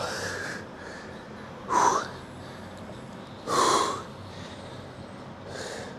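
A man breathing hard, four loud breaths about two seconds apart, catching his breath after a set of lateral raises taken close to failure.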